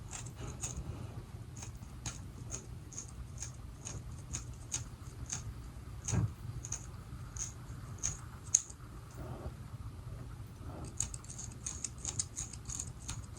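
Tweezers plucking hairs from a wig's lace hairline: small, sharp clicks about two a second, coming faster near the end, over a low steady hum, with one soft knock about six seconds in.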